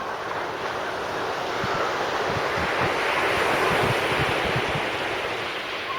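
Sea surf: a wave breaks and washes up the beach, swelling to a peak about halfway through and fading away near the end. Wind buffets the microphone in low rumbles while the wave is at its loudest.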